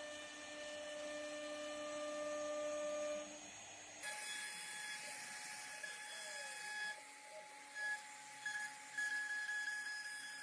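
CNC machine running: a steady, fairly quiet motor whine and hum. About four seconds in it changes abruptly to a higher whine that stops and starts several times.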